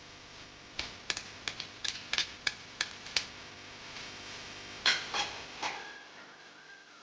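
A series of sharp, irregular clicks and taps, about a dozen, with the loudest cluster about five seconds in, over a faint steady background hiss.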